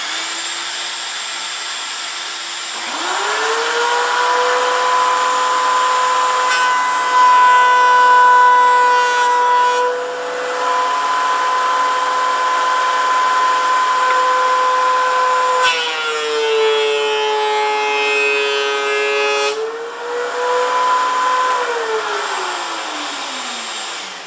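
A shop vacuum running for dust extraction, joined about three seconds in by a DeWalt two-speed thickness planer's motor spinning up with a rising whine. The planer runs as a board is planed twice, its pitch dropping under load during the later pass, then winds down with a falling whine near the end while the vacuum keeps running.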